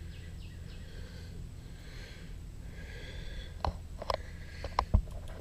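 Footsteps knocking on a wooden boardwalk: a few light, uneven knocks in the second half, the last one the loudest. Behind them is faint outdoor background with a low rumble, and a bird chirps repeatedly in quick short notes early on.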